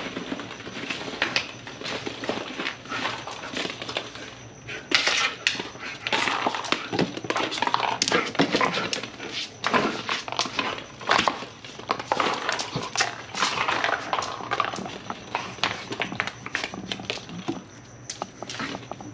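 A German shepherd rummaging through a pile of plastic ball-pit balls on a hard floor. The light plastic balls knock and clatter irregularly as the dog pushes into them and moves about.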